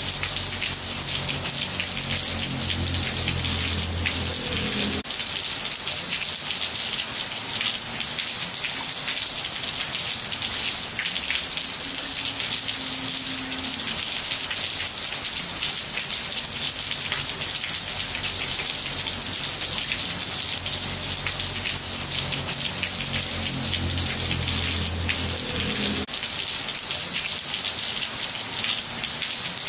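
Steady rain falling on tiles: a continuous hiss made of many fine drop patters. Beneath it a faint low drone stops abruptly about five seconds in and comes back later.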